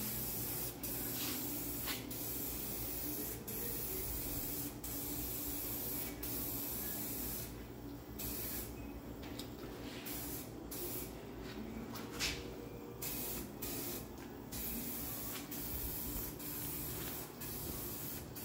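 Aerosol can of 2K high-temp ceramic engine paint hissing as gloss black is sprayed onto an engine block, in long bursts with short breaks between passes.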